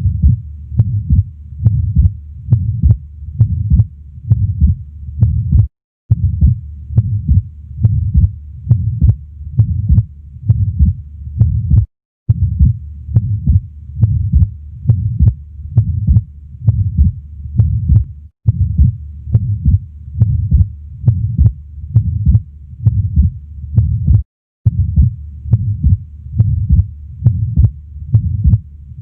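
Heart sounds of an atrial septal defect heard through a stethoscope at the left base (upper left sternal border): regular lub-dub beats with a murmur between them, typical of the pulmonary flow murmur of an ASD. The recording loops about every six seconds, with a brief break between repeats.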